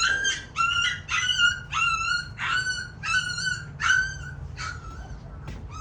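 Litter of two-week-old puppies whining and crying: a run of short, high-pitched whimpers, about two a second, dying away near the end.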